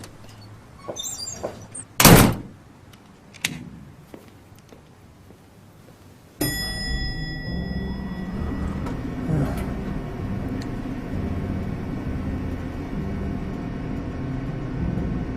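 Cartoon sound effects: a few soft knocks and one loud thud about two seconds in, with a second, smaller knock a moment later. A little past six seconds a sudden ringing hit brings in low, sustained music that runs on.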